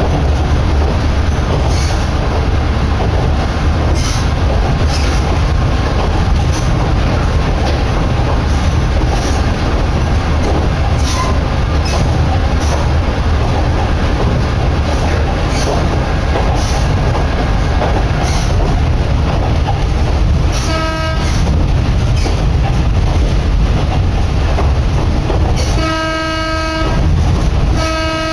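Diesel railcar on the Kominato Railway line running, heard inside the carriage: a steady low rumble of engine and wheels with repeated clicks of the wheels over rail joints. The train's horn sounds briefly about two-thirds of the way in and again, longer, near the end.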